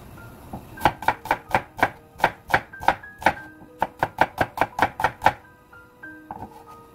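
Chef's knife slicing a peeled onion on a wooden cutting board: about twenty quick, even chops at roughly four a second, with a short pause midway and a few softer knocks near the end.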